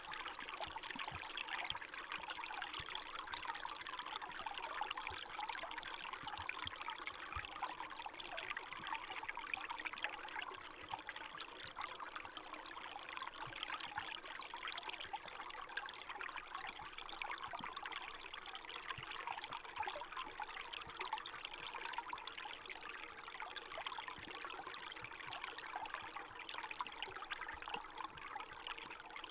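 Small stream of running water flowing and trickling steadily over rocks, a light babbling splash.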